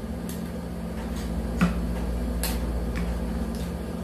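Light plastic clicks and knocks from a phone being fitted into an Ulanzi ST-02L tripod phone holder, about one a second, the sharpest about one and a half seconds in, over a steady low hum.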